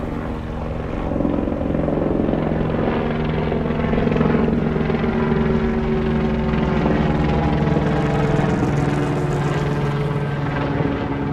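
A steady, pitched mechanical drone over a haze of street traffic.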